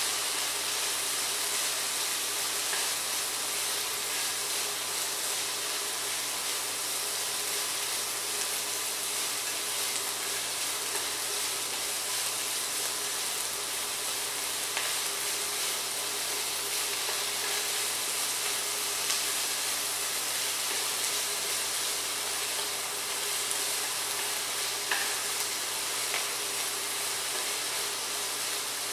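Parsley and dried tofu stir-frying in hot oil in a pot: a steady sizzle, with a few light clicks as the food is stirred.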